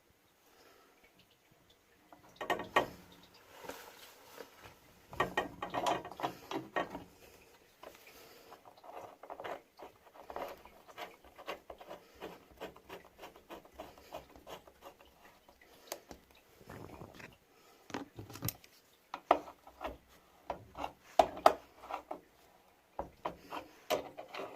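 Hand-tool work on a tap during a repair: irregular clicks and scraping that come in bursts and stop and start.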